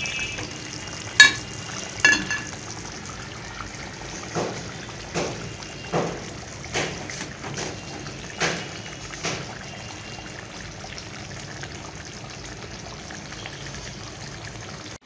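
Thick fish curry sizzling in a metal karahi while a spatula stirs it, scraping and knocking against the pan about ten times over the first nine seconds. After that only the steady sizzle is left.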